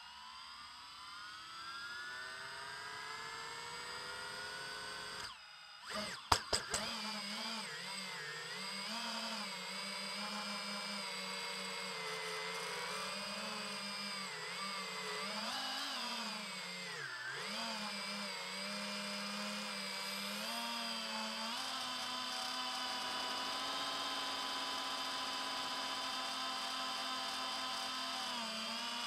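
Brushless motors of an iFlight Titan DC5 FPV quadcopter, heard from its onboard camera: a whine that rises as the motors spin up, a brief cluster of sharp knocks about six seconds in, then a steady high buzzing whine whose pitch rises and falls with the throttle in flight.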